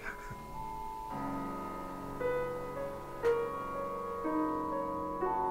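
Background piano music: slow, held notes entering about a second in, with one sharp struck note a little past the middle.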